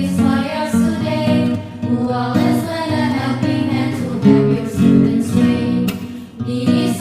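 A vocal group singing a song with acoustic guitar accompaniment.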